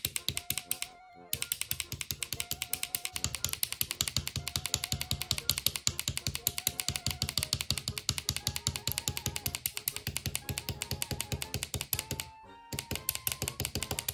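Rapid, even clattering of a demolition hammer (jackhammer) sound effect over background music; the clattering stops briefly about a second in and again near the end.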